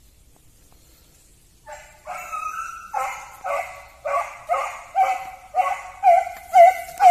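Hunting dog barking in a steady run of high barks, about two a second, starting about two seconds in and growing louder.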